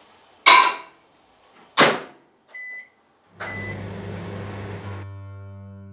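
Microwave oven: two loud clunks of the door, one short beep as it is set, then the oven starts running with a steady low hum. Synthesizer music comes in near the end.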